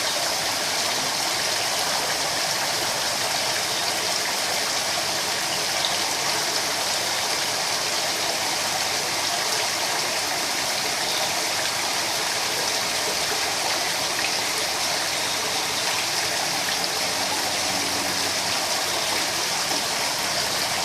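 Steady rush of water splashing into a koi pond, as from a pond waterfall or filter return.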